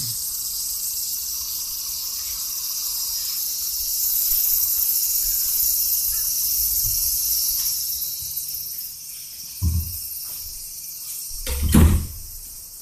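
Steady high-pitched chorus of insects outdoors, fading away after about eight seconds. Two thumps follow near the end, the second louder.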